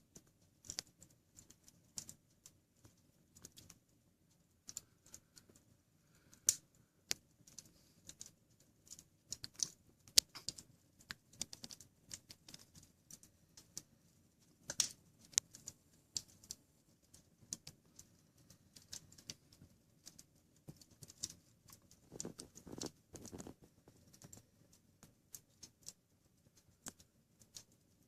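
Wood fire crackling in a fireplace: irregular sharp pops and snaps, with a brief low rush of flame noise about three-quarters of the way through.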